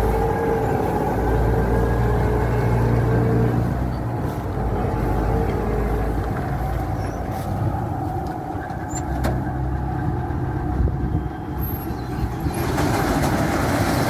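Combine harvester's diesel engine running steadily as the machine drives forward, a continuous low drone that grows a little louder and hissier near the end.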